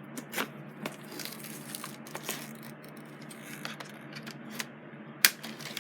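Toy packaging being handled: scattered rustling and small clicks, with one sharp click a little after five seconds in.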